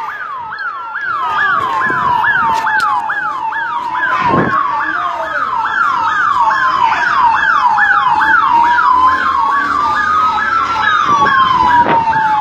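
Two emergency sirens sounding together: one on a fast yelp of about two to three rising-and-falling sweeps a second, the other on a slow wail that rises and falls over several seconds. There is a brief thump about four seconds in.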